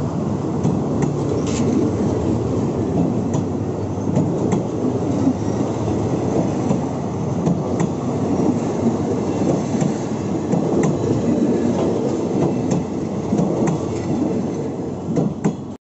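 State Railway of Thailand passenger coaches rolling past close by, a steady rumble of wheels on rails with scattered faint clicks. The sound cuts off suddenly at the end.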